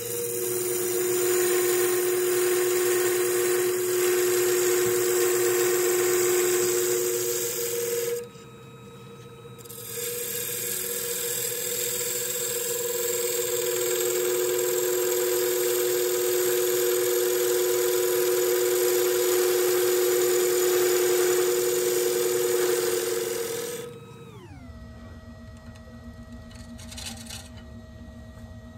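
Wood lathe running with a steady whine while a bowl gouge cuts the spinning ash bowl: a hissing cut for about eight seconds, a short break, then another cut of about fourteen seconds. Near the end the cutting stops and the lathe's whine drops in pitch as it slows down.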